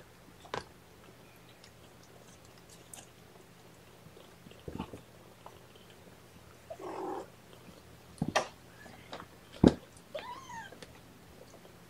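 Young kittens mewing, with one short arching mew about ten seconds in, among a few scattered sharp clicks and knocks, the loudest just before that mew.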